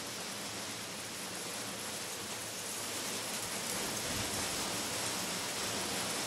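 Heavy storm rain falling, a steady hiss that gets slightly louder about four seconds in.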